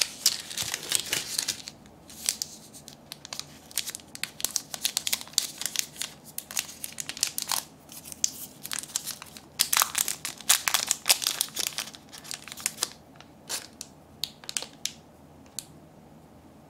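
Crinkling of band-aid-style wrappers on individually wrapped gummy candies as they are handled and one is peeled open. It comes in bursts of crackling, then thins to a few scattered crinkles near the end.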